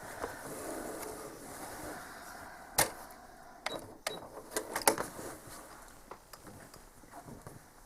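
Home sewing machine taking a few slow, separate stitches to tie off a thread knot: a soft rustle of the quilt being handled, then a handful of sharp, irregular clicks from the needle and machine about three to five seconds in.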